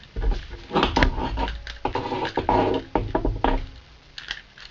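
Seatbelt retractor being handled and fitted into place: a run of sharp plastic and metal clicks and knocks, busiest from about two seconds in.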